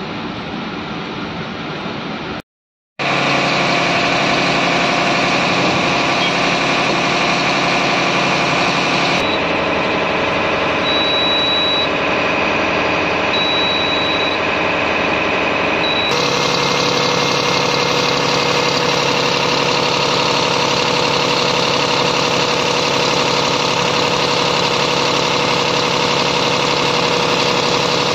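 BharatBenz 2828CH truck's six-cylinder diesel engine running steadily. The sound drops out for half a second about two and a half seconds in. While the dashboard is in view, there are three short high beeps a couple of seconds apart.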